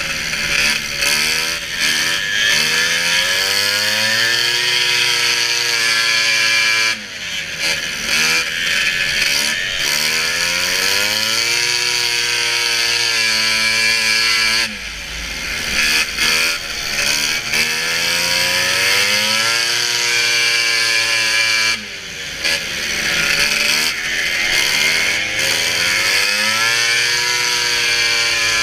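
Race snowmobile's two-stroke engine at high revs, its pitch climbing steadily under throttle, then dropping sharply as the throttle is let off and climbing again. This happens three times, roughly every seven seconds.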